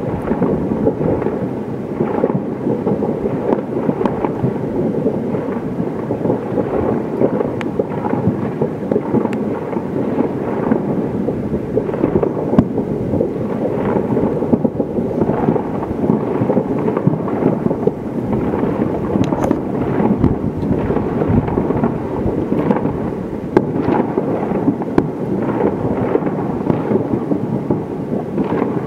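Continuous rumble of many distant New Year fireworks bangs running together, with a dense scatter of small irregular pops and no pauses.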